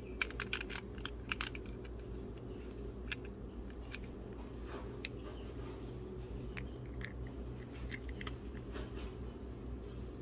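Small metallic clicks and ticks as the chainsaw crankshaft, connecting rod and loose uncaged needle-bearing rollers are handled: a quick cluster of clicks about half a second to a second and a half in, then scattered single ticks. A steady low hum runs underneath.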